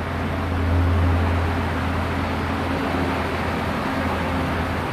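Steady low mechanical hum of a powered-up 1988 Okuma MC-4VA vertical machining center running idle, swelling slightly about a second in.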